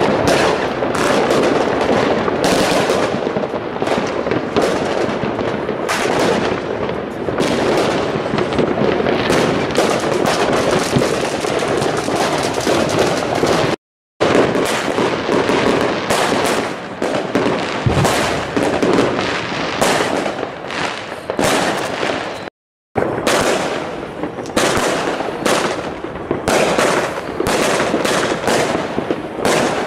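Fireworks going off in a dense barrage: aerial shells bursting with rapid, overlapping bangs and crackles. The barrage breaks off abruptly twice, near the middle and about two-thirds through, as one recording cuts to the next.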